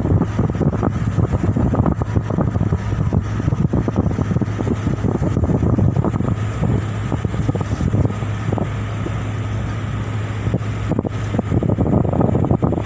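A boat's engine running with a steady low drone while wind buffets the microphone.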